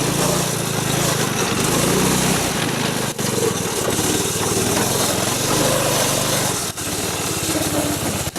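Snowmobile engine running steadily, with two momentary dropouts in the sound, one a little after three seconds and one near seven seconds.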